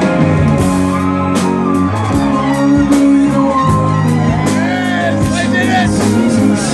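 Live rock band playing: guitars and drums with a steady beat, and vocal lines gliding in pitch over them.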